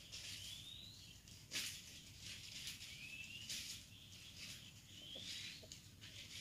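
A small bird calling faintly: a short rising whistle, repeated about every two seconds, with brief bursts of high hiss between the calls.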